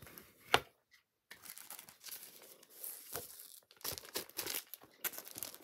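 Crinkling and rustling of crinkly wrapping being handled, with one sharp click about half a second in.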